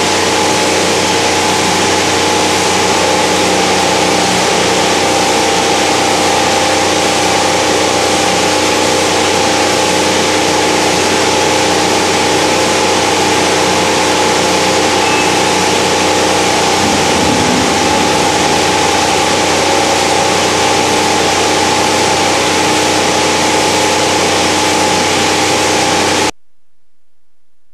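Plastic recycling washing line running: the motor-driven paddle washing tanks (2 HP water mills) make a steady machine hum, several steady tones over an even rush of noise. The sound cuts off suddenly near the end.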